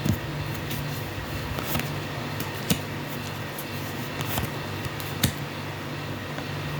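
Steady low hum with about five short, sharp light taps or clicks scattered through it.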